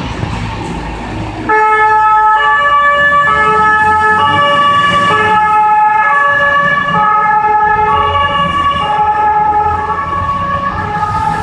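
Renault Midlum fire engine's two-tone siren switching on about a second and a half in, alternating between a high and a low note, each held just under a second, over the low rumble of the truck's engine.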